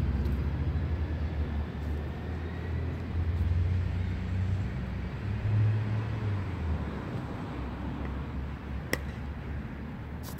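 Steady low rumble of traffic, with a single sharp pock of a pickleball paddle striking the ball about nine seconds in.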